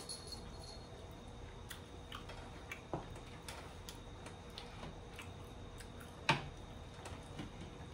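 Quiet eating sounds of people chewing buffalo wings: scattered small mouth clicks and lip smacks, the loudest a little after six seconds in.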